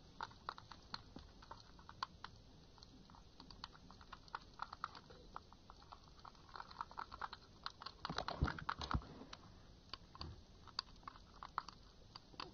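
A pen stirring a soft soap and salt slime mixture in a clear plastic cup: quiet, irregular clicks and taps of the pen against the cup, with a louder cluster of knocks around eight to nine seconds in.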